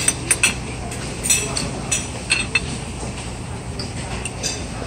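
Scattered sharp clinks of plates, serving tongs and cutlery, over the steady hum of a busy buffet dining room.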